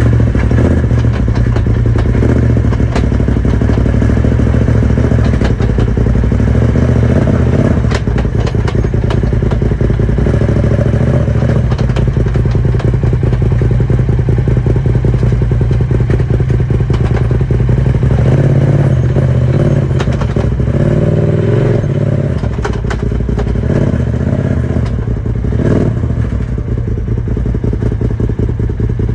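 Polaris RZR XP Turbo side-by-side running steadily with a rattling clatter of knocks throughout, a noise the owner suspects comes from the transmission, drive shaft, differential or clutch.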